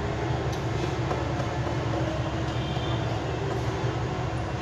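A steady low mechanical hum with a few faint clicks.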